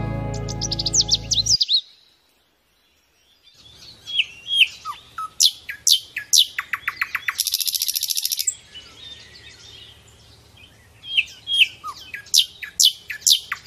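Songbird singing: series of quick, high falling chirps that end in a rapid trill, the phrase repeated about 11 s in. Music ends about a second and a half in, just before the birdsong.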